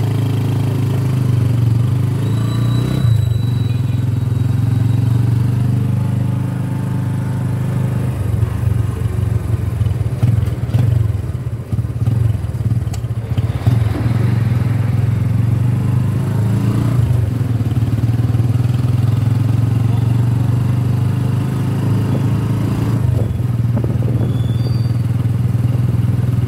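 Small motorcycle engine running steadily under way, turning rougher and more uneven for several seconds in the middle.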